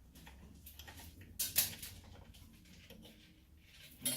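Faint small metal clicks and one short scrape from a hand tap being turned in a tap wrench as it cuts an 8-32 thread into the saw's cast metal.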